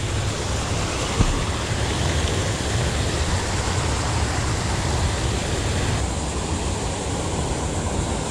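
Water rushing steadily over a low concrete weir, a continuous spillway rush of falling and churning water, with one brief tap about a second in.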